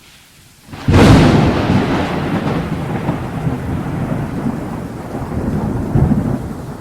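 Thunder heard through a parabolic microphone: a sudden loud crack about a second in, then a long low rumble that slowly fades, with rain.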